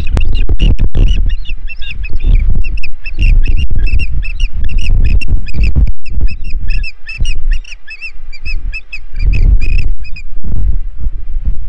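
Ospreys calling at a fish delivery on the nest: a rapid, excited series of short, high chirps that stops about ten seconds in. A loud low rumble of wind on the microphone runs under the calls.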